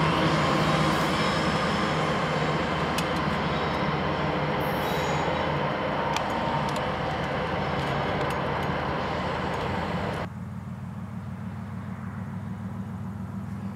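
Diesel freight locomotives running as they move away around a curve, their engine drone fading slowly, with a few sharp high wheel squeals or clicks. About ten seconds in, the sound cuts abruptly to a quieter low hum.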